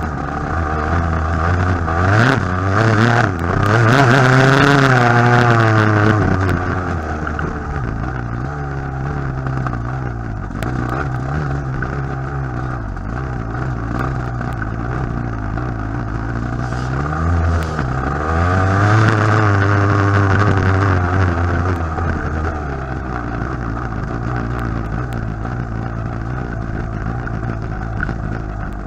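TM Racing enduro motorcycle engine running under the rider, revving up and down over rough dirt track, with two clear climbs in pitch, a few seconds in and again past halfway. Knocks and rattles from the bike over bumps near the start.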